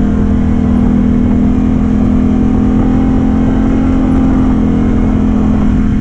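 Off-road vehicle engine running at a steady, even pace while being ridden along a trail.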